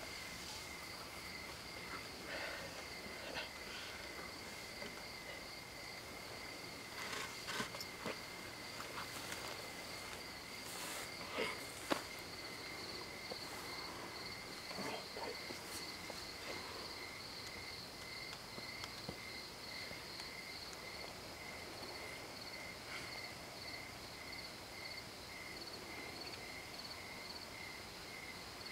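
Crickets chirping in a steady, finely pulsed trill, with faint rustling and a couple of soft knocks.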